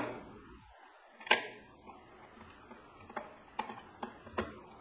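Sharp clicks and taps from hands working wires into a plastic electrical socket box: one louder knock about a second in, then four lighter ticks in quick succession near the end.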